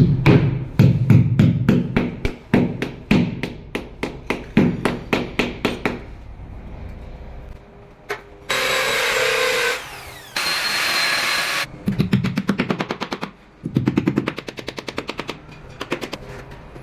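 Construction work fixing plasterboard: a run of sharp knocks, about three a second, for the first six seconds; past the middle a drill runs for about three seconds with a short break; then a run of faster knocks.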